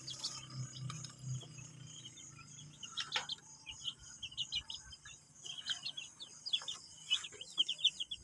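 Young chickens peeping: short high chirps in irregular runs, with a few sharp taps as they peck feed from a clay feeder.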